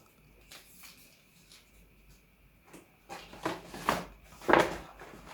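Several short rustles and knocks of packaging being handled, starting about three seconds in after a quiet pause.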